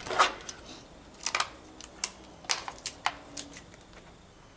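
Plastic makeup packaging being handled: a scattered series of short, sharp clicks and taps, about six of them.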